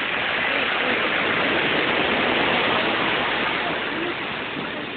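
Ocean surf washing up over the sand at the water's edge, a rushing hiss that swells and then eases off near the end.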